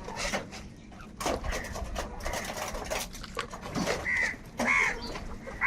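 Crows calling in short harsh caws, three in quick succession in the second half, over scattered sharp clicks.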